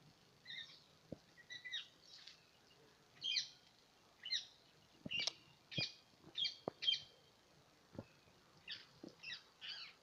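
Parrots calling: a string of short, high-pitched calls repeated in quick groups, with a few sharp clicks in between.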